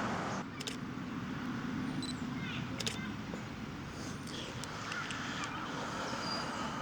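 Outdoor ambience: a steady low background rumble, with a few faint, short bird calls and a couple of small clicks.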